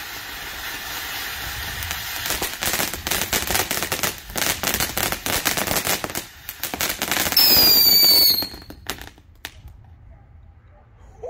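TNT Fireworks Tyrannosaurus Rex fountain burning: a steady hiss of spraying sparks, turning into dense crackling about two seconds in. About seven seconds in comes a loud whistle lasting about a second and falling slightly in pitch, then a few last crackles before the fountain stops.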